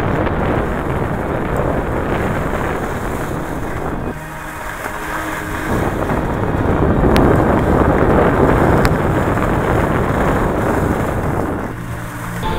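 Snow scraping and hissing under a rider sliding down the slope, with wind rushing over the glasses-mounted microphone. The noise eases off briefly about four seconds in and again near the end.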